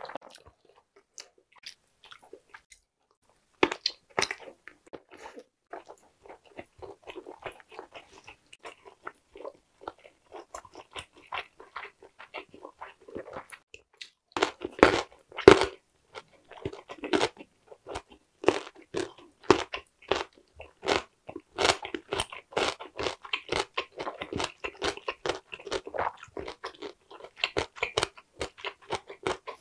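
Eating sounds: quiet chewing at first, a sharp crunch about four seconds in, then loud crunching bites into a piece of chonggak (ponytail radish) kimchi about halfway through, followed by steady crunchy chewing of the radish.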